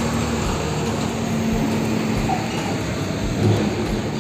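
Tanker truck's engine running, with a steady wash of road and traffic noise and a faint low hum.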